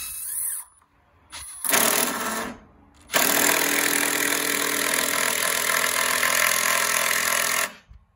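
Cordless drill driving screws into a wooden 2x4 frame: a short run about a second and a half in, then a longer steady run of about four and a half seconds that stops abruptly. The screws are being sunk deeper than needed.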